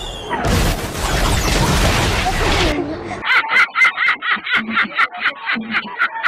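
A loud, dense rushing noise that cuts off suddenly, then a man's high-pitched, shrieking laugh in short rapid bursts, about four a second.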